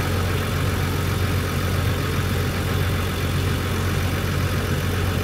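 Flatbed tow truck's engine idling with a steady low drone.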